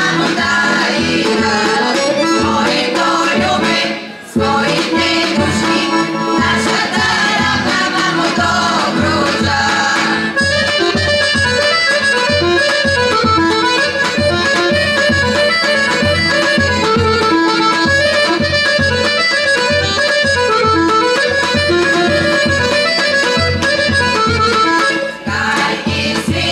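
Women's folk choir singing with accordion and drum, then from about ten seconds in an accordion playing an instrumental passage over a steady drum beat. The music breaks off briefly twice, about four seconds in and near the end.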